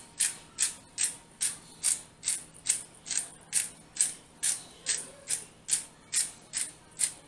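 Seasoning dispensed by hand over ground beef for burger patties: an even run of about two and a half short, sharp strokes a second.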